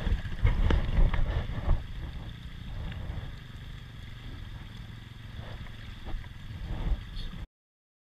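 Shallow creek water flowing and lapping close to the microphone, with heavy uneven bumps through the first two seconds before it settles into a steadier rush. The sound cuts off suddenly near the end.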